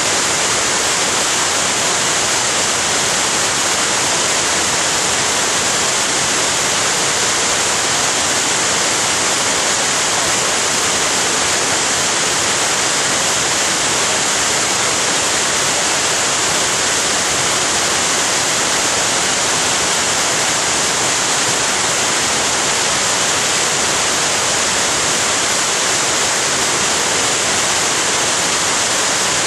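Waterfall rushing, a loud, steady hiss of falling water that never lets up.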